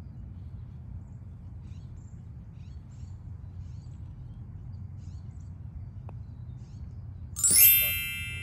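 A putter strikes a golf ball about seven seconds in: a sharp metallic ping that rings and fades over about a second. Before it there is only a low outdoor background with faint bird chirps.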